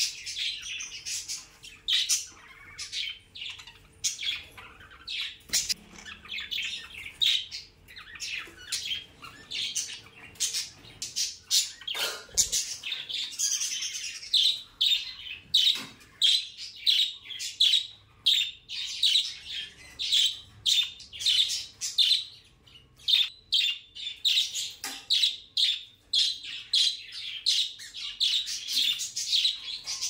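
Budgerigars chirping and chattering: a rapid, continuous stream of short high chirps and squawks.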